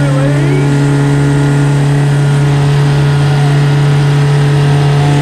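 Custom rock crawler's engine held at steady revs as the buggy works up a rock step, a loud unchanging drone with no rise or fall in pitch.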